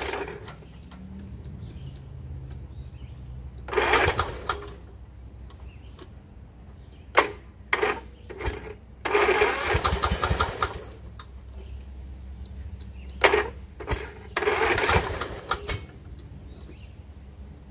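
Cub Cadet engine in a zero-turn mower being cranked by its electric starter in a series of short tries a few seconds apart, the longest lasting about two seconds near the middle, over a steady low hum. The owner puts the trouble down to a bad battery.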